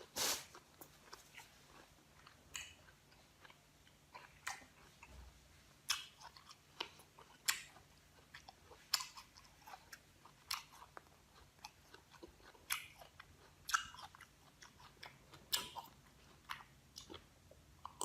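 A person biting and chewing crisp raw green guava: a loud crunching bite at the start, then irregular crunches every second or so.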